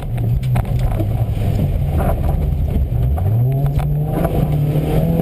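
Škoda Fabia 1.4 rally car's engine heard from inside the cabin. The revs sag, then climb again about three seconds in as the driver accelerates, with road noise and a few short knocks.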